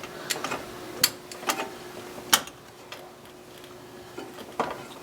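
Several sharp metallic clicks and clinks at irregular intervals: a socket and extension knocking against metal as they are fitted onto a flex plate bolt through the starter opening. A faint steady hum runs underneath.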